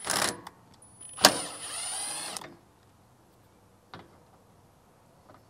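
Cordless drill with a 10 mm socket backing out bumper bolts. A short burst at the start, then a sharp click and about a second of motor whine that falls in pitch as the drill runs.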